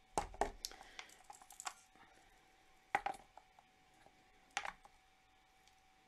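Small clicks and taps of metal jewellery pliers and findings being handled as a crimp bead is pressed onto crimping chain: a quick flurry in the first two seconds, then single sharper clicks about three and four and a half seconds in, over a faint steady tone.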